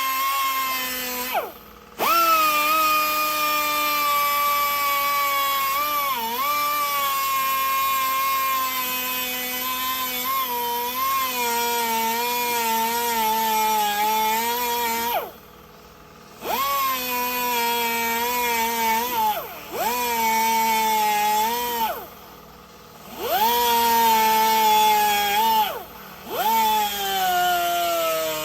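A rebuilt 12 V 2.2 kW Hitachi starter motor for a Yanmar 482/486 engine, test-run after repair. It is switched on and off about five times; each time it spins up with a quick rising whine, runs with its pitch sagging slowly, then winds down when cut off.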